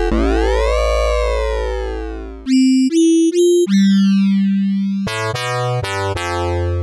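Digital synthesizer sequence made by polar-to-rectangular synthesis, where a superformula polar plot drives a waveform's amplitude. It starts with a long bass note whose overtones sweep up and back down, then a few short higher notes, a held note, and a run of quicker notes over a bass near the end. The sweeps come from the synthesis technique itself, not from filter or MIDI programming.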